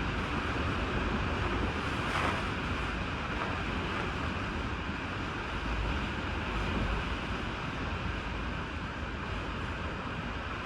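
Strong typhoon wind blowing steadily, with a low rumble of wind buffeting the microphone.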